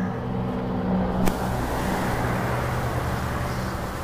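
Honda CB 300F Twister's single-cylinder engine idling steadily, with a vehicle passing on the road from just after a sharp click about a second in.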